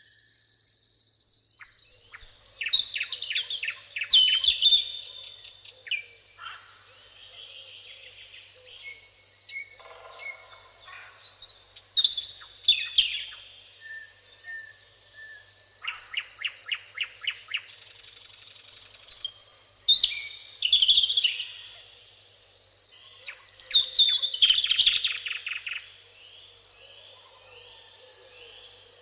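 Several songbirds singing in overlapping phrases, with loud rapid trills every few seconds, over a steady high insect buzz.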